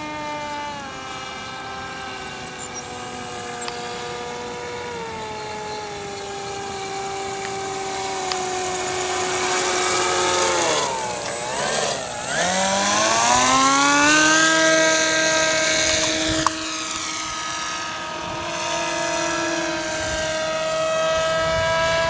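Radio-controlled model gyrocopter's motor and propeller droning in flight with a steady pitched tone. The pitch slowly drops, wavers as the model passes low about eleven seconds in, then rises again and holds.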